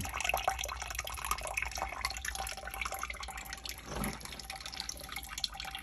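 Water trickling and dripping from the drain pipe into a shallow sump pit as it fills, an irregular splashing patter.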